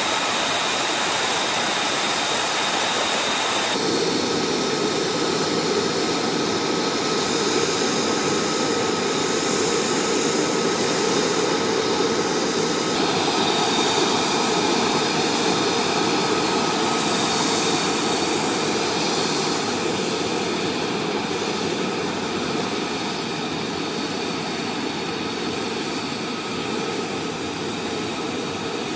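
F-35A Lightning II's single Pratt & Whitney F135 turbofan running at ground idle on the flight line: a steady jet rush with a high, constant whine over it. The sound shifts in character about four seconds in.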